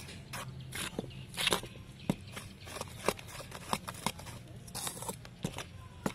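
Metal spoon scraping and knocking against a stainless steel bowl while stirring eggs into dry flour, in irregular strokes about once or twice a second.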